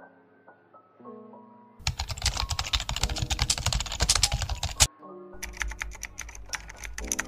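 Rapid computer keyboard typing in two runs, the first about three seconds long and the second, after a short pause, about two seconds, over background music with a melody.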